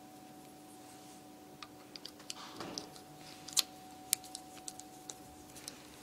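Faint, scattered small clicks and ticks as a suspension fork's rebound adjuster knob is pushed onto the damper shaft and its grub screw is tightened with a hex key, over a faint steady hum.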